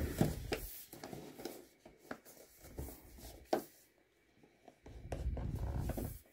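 Cardboard product box being handled: fingers rubbing and tapping on the paperboard as it is turned on end and its end flap worked at, with a sharper tap about three and a half seconds in and a longer low rub near the end.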